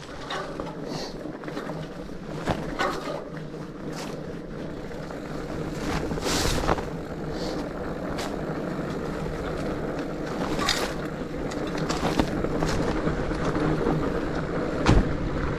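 A rigid fat bike rolling over a rough dirt trail: a steady rumble from the tyres, with the unsuspended bike rattling and knocking over rocks and roots, and one sharp knock near the end.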